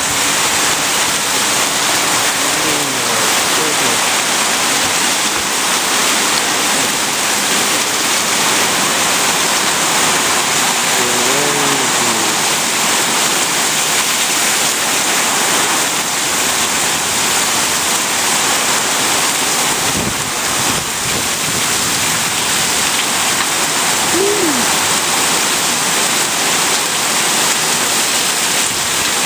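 Heavy downpour: a steady, loud rush of rain, with water pouring off the roof edge like a waterfall.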